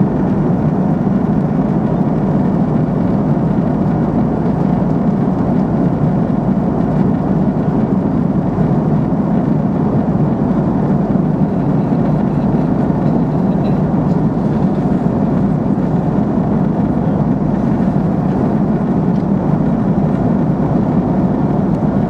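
Steady roar of a jet airliner's cabin in flight: engine and airflow noise, even and unbroken, cutting off suddenly at the end.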